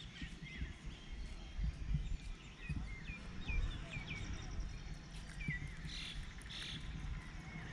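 Outdoor dawn ambience: birds chirping, a string of short hooked calls every second or so, over an uneven low rumble of background noise.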